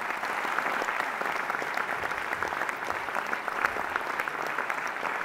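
Audience applauding: many hands clapping in a steady, even patter.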